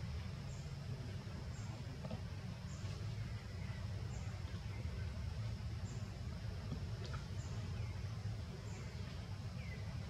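Outdoor ambience: a steady low rumble, with a short high-pitched chirp repeating about once a second and a few brief falling chirps.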